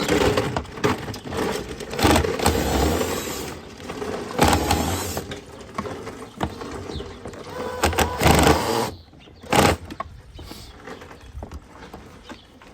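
Plastic car door trim panel being worked loose by hand: several long stretches of scraping and rubbing, then a single sharp snap about three-quarters of the way through.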